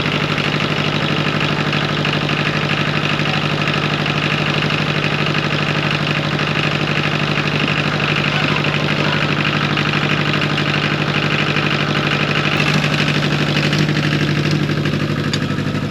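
Engine running steadily at idle, with an even, unbroken low hum.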